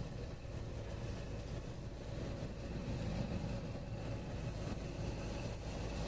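Steady engine drone and tyre noise heard from inside the cab of a moving vehicle cruising along at an even speed.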